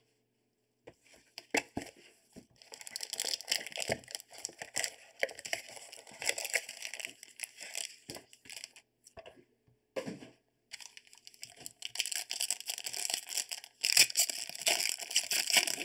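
Foil wrapper of a trading-card pack crinkling and tearing as gloved hands open it, in spells of crackly rustling with short pauses, loudest near the end.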